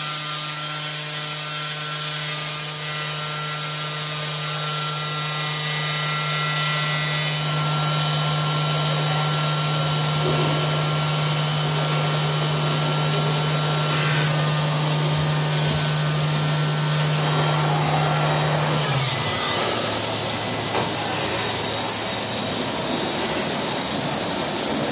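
Vertical CNC glass machining centre running: spindle whine and steady motor hum with the hiss of water coolant as it machines glass. The hum steps down in pitch a little past three-quarters of the way through.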